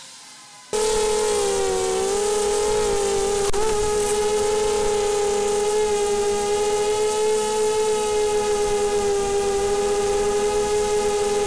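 Small FPV quadcopter's electric motors and propellers whining, a steady high-pitched hum with several pitches at once. It is faint at first, then comes in loud suddenly about a second in. The pitch dips and wobbles briefly before holding steady.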